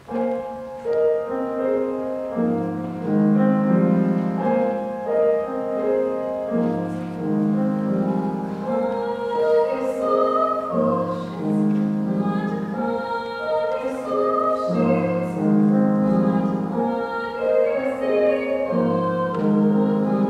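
Steinway grand piano playing an accompaniment while a woman sings over it in a classical, operatic style with vibrato.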